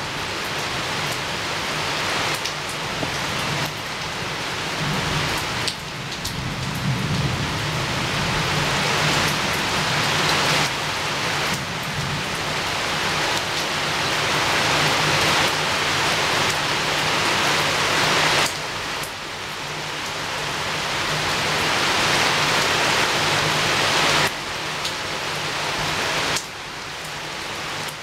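Steady heavy rain pattering against a window, a dense hiss of drops whose loudness swells gradually and then falls away abruptly several times, with a faint low hum underneath.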